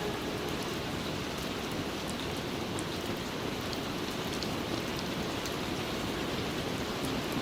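Steady rain falling, an even hiss dotted with faint ticks of single drops.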